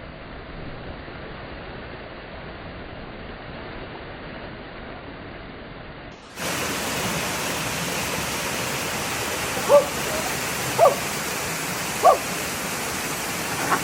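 Waterfall rushing as a steady wash of water noise, becoming louder and fuller after a cut about six seconds in. Three or four short, sharp calls sound over it in the second half.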